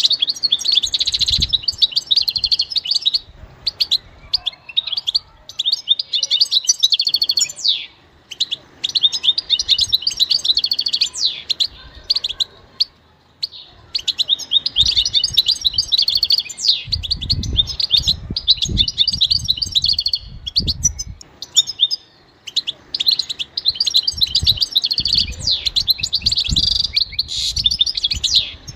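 European goldfinch singing long runs of rapid twittering song, broken by a few short pauses. Some low thumps come in during the second half.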